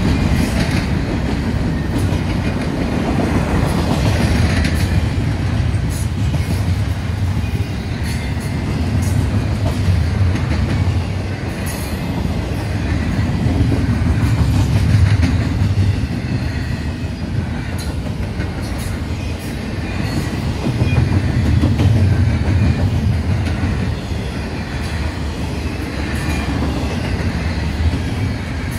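Intermodal freight train cars rolling past: a steady rumble of wheels on rail that swells and eases as the cars go by, with scattered clicks.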